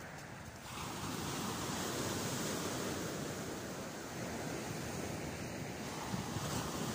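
Sea surf breaking and washing up the beach, a steady rushing hiss of waves that swells up about a second in.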